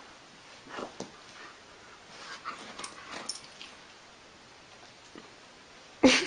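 Siberian husky giving one short, loud vocal sound near the end, after several seconds of faint scuffling and small knocks from the dog and ferret playing.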